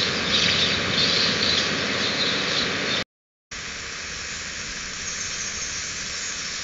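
Two AI-generated sound-effect clips played one after the other, both a steady noisy hiss. The first is louder and cuts off suddenly about three seconds in; the second starts half a second later, a little quieter.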